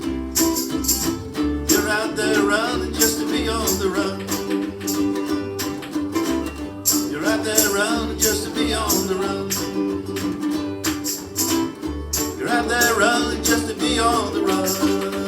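A ukulele group strumming a simple three-chord song together in a steady rhythm, with a low bass note pulsing on the beats.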